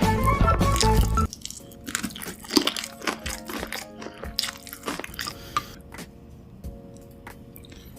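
Close-miked crunchy bites and chewing of fried chicken, a run of sharp crunches that thins out after about six seconds, over background music that is loud for the first second and then drops.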